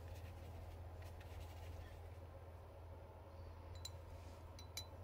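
Quiet room tone with a steady low hum, and two small sharp clicks near the end.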